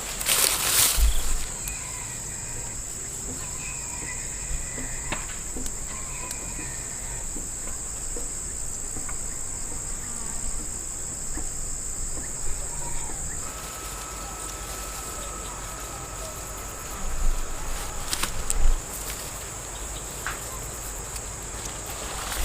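Insects drone steadily at a high pitch throughout. A loud rustle of handling noise comes right at the start, and a few knocks come about three quarters of the way through.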